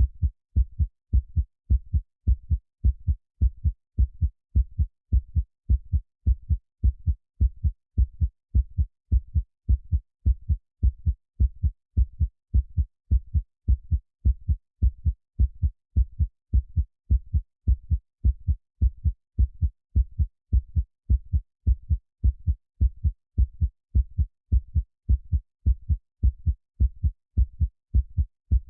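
Heartbeat sound: low, muffled thumps repeating in a steady, even rhythm.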